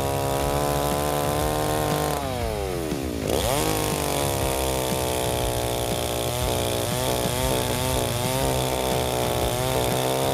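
Stihl chainsaw running at high revs while cutting through a log on a freshly sharpened chain, with the saw's own weight doing the feeding. Its engine speed drops steeply about two seconds in and climbs straight back up about a second later, and it wavers under load later on.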